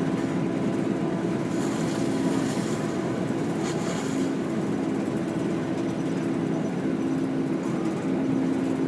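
Steady engine drone and road noise heard from inside a moving bus, with a constant low hum.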